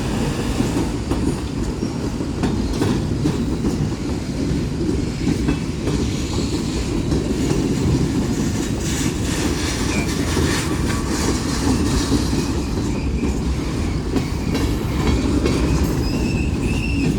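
Freight cars of a Union Pacific manifest train rolling past: a steady heavy rumble with the clickety-clack of steel wheels over the rail joints.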